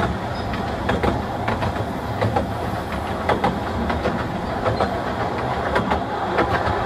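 A 15-inch-gauge narrow-gauge railway train running, with a steady rumble and the wheels clicking over the rail joints every half second to a second.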